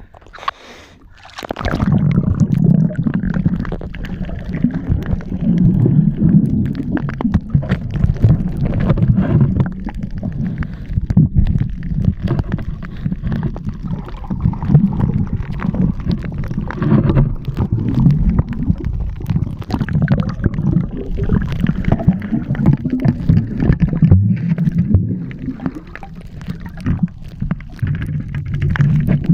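Muffled underwater noise: bubbles gurgling and water churning, heard underwater with a low, uneven rumble, starting about a second and a half in.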